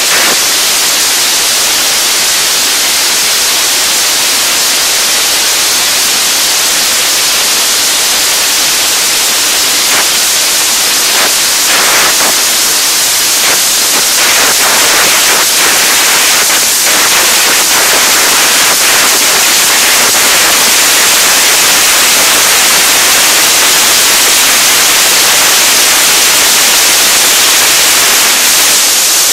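Loud, steady hiss of compressed air rushing out of a duct-cleaning air-whip hose inside sheet-metal ductwork, with a run of faint knocks partway through.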